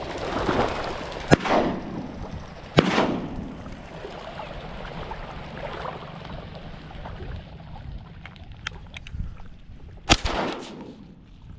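Three shotgun shots, the first two about a second and a half apart and the third some seven seconds later, each followed by a rolling echo.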